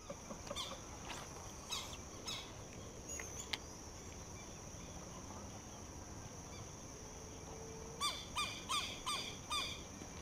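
Birds calling outdoors: scattered chirps in the first few seconds, then a run of about six quick, repeated call notes near the end, over a steady high-pitched insect drone.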